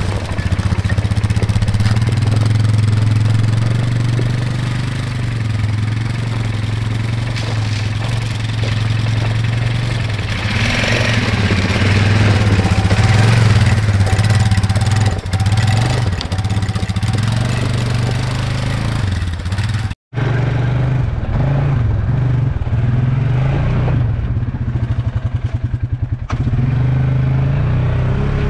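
ATV (quad) engine running steadily while riding a rough trail. About two-thirds of the way through the sound cuts out for an instant and comes back duller.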